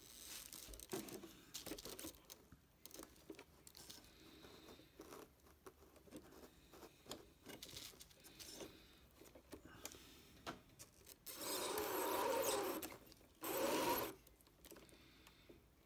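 Light clicks and rubbing from handling the RC truck's drivetrain, then near the end two short runs of its electric motor and gears, the first about a second and a half long, the second about half a second.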